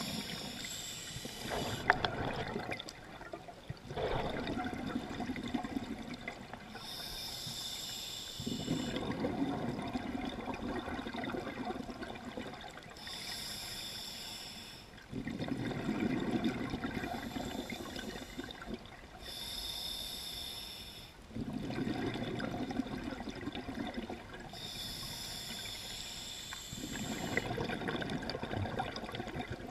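Scuba diver breathing through an open-circuit regulator underwater: a short hiss of air on each inhalation, then a longer gurgle of exhaled bubbles, repeating about every six seconds. There is a single sharp tap about two seconds in.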